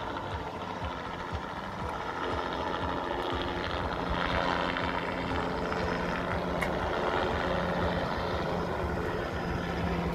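Small helicopter flying overhead, its rotor and engine a steady drone that grows a little louder about four seconds in.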